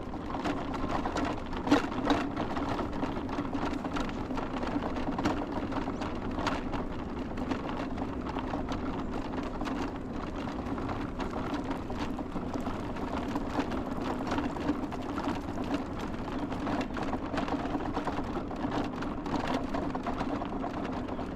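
A small motor running steadily with a constant hum, over a light rattle and a few sharp clicks.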